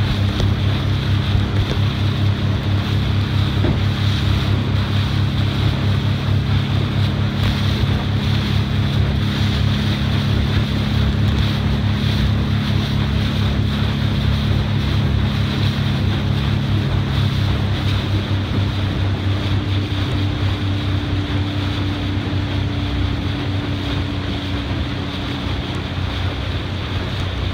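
A boat's engine running at a steady speed with a low, pulsing hum, under water washing and wind buffeting the microphone.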